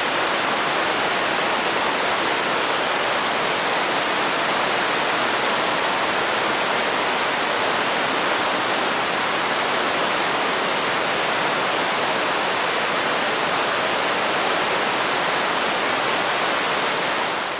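Waterfall: a steady, even rush of falling water, fading out at the very end.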